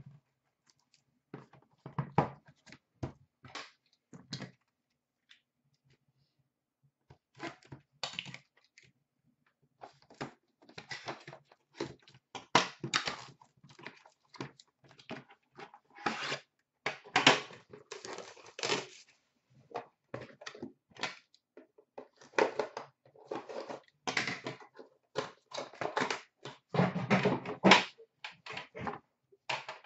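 Hands handling sealed hockey card boxes: irregular clicks, knocks and rustling of cardboard and plastic wrapping as boxes are moved and unwrapped. The handling is busier and louder in the second half, where a metal card tin is slid out of its cardboard sleeve.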